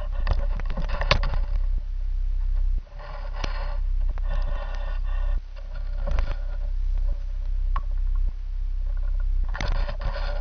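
Handling rumble and knocks picked up by a pole-mounted camera's microphone as the pole is moved. Squeaky scraping sounds come several times, each under a second long.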